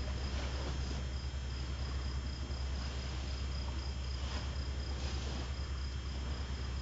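Crickets chirping steadily in a high, pulsing trill over a constant low hum.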